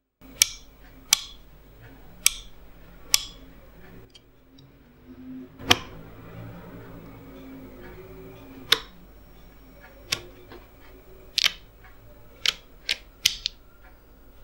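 DP-66M Geiger counter clicking at irregular intervals as it counts background radiation, about ten sharp clicks in all, over a faint steady hum.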